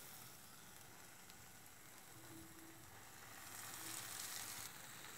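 Faint sizzling of oil and fried mint paste in a stainless-steel pan, growing a little louder about three and a half seconds in as cooked rice is tipped into the pan.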